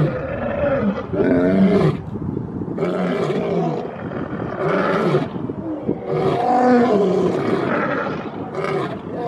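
Lions growling in a series of short, pitched calls, one roughly every second.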